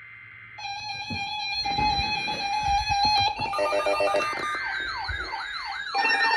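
Layered electronic tones, heard as music: a held tone starts about half a second in, joined by several other steady tones and, after about three and a half seconds, fast warbling, siren-like pitch sweeps.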